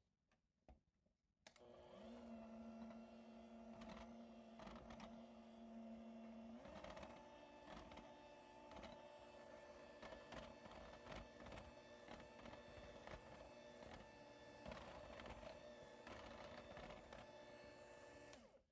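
Small electric kitchen mixer motor running steadily, likely mixing waffle batter. It starts about a second and a half in, its pitch shifts slightly around six seconds, and it stops just before the end, with light clicks throughout.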